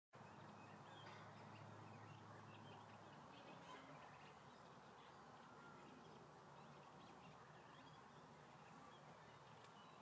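Near silence: faint outdoor background noise with a few faint, scattered bird chirps.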